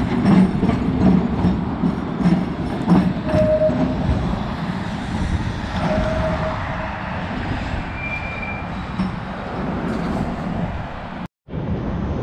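A vintage M-Line streetcar rumbling along its rails, with a few brief high tones over the rolling noise. The sound cuts out for a moment near the end.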